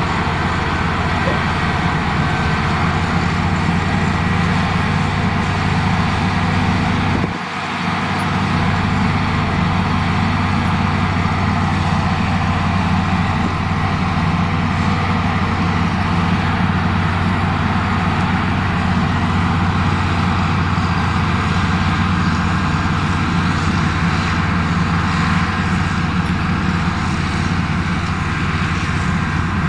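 Heavy diesel engine of construction machinery running steadily under load, with a low, even drone; the sound drops out for a moment about seven seconds in, then carries on the same.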